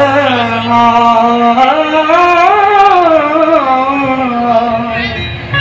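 Qawwali singer holding one long wordless sung note, its pitch rising about two seconds in and sliding back down before it breaks off near the end.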